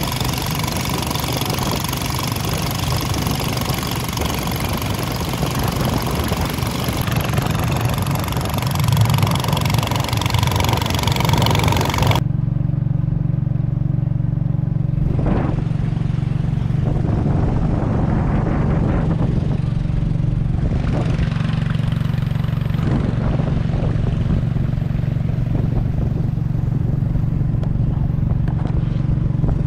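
Boat engine running steadily under way, a constant low drone. For the first twelve seconds a loud hiss rides over it; then the hiss drops away suddenly and the engine drone goes on alone.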